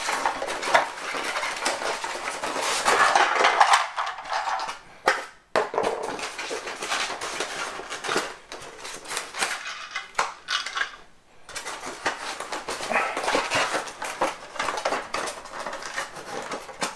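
Plastic toy train pieces being lifted out of a thin plastic packaging tray: crinkling and clattering of light plastic, with two short breaks.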